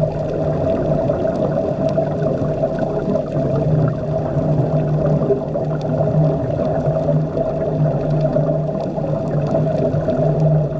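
Underwater sound: a steady drone with two constant hum tones, one low and one higher, under a rough watery haze with faint gurgling and clicks.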